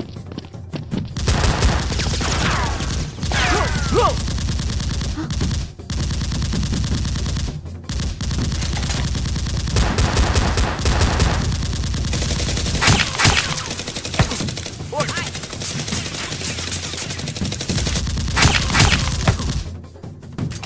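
Dubbed-in machine-gun sound effects: long bursts of rapid automatic fire, starting about a second in and broken by a few brief pauses.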